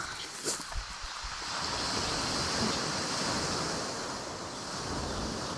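Surf washing on the shore, a steady rush that swells up about a second and a half in and holds, with a faint click near the start.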